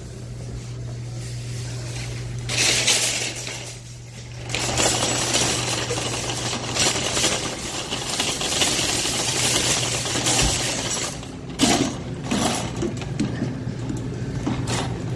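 Metal shopping cart rattling and clattering as it is pushed across a hard store floor, with a few sharper clanks, over a steady low hum.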